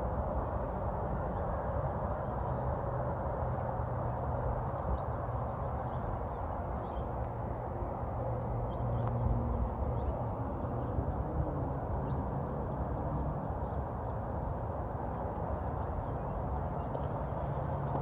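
Footsteps of someone walking over pavement and dirt, heard as faint ticks over a steady low rumble of outdoor noise.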